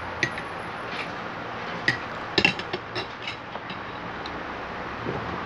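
Spoon and fork clinking against a plate in a string of short, sharp taps, the loudest cluster a little past two seconds in, over a steady low hiss.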